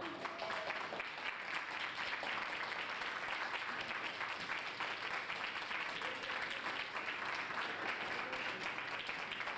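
A crowd of people applauding, the clapping starting suddenly and then keeping up at a steady level.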